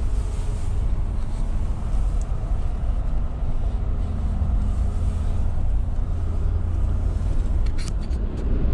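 Steady low rumble of a car's engine and tyres, heard from inside the cabin while driving slowly on a snowy road. A faint click sounds near the end.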